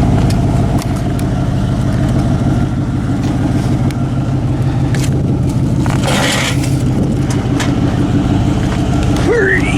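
Truck engine running steadily, heard from inside the cab, with a brief burst of hiss about six seconds in.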